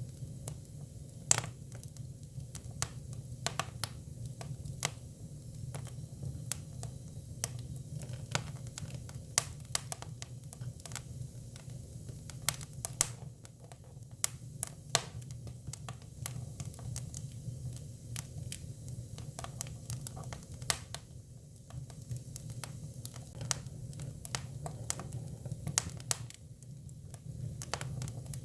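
Hinoki (Japanese cypress) firewood burning: irregular sharp crackles and pops, a few of them loud, over a steady low rumble.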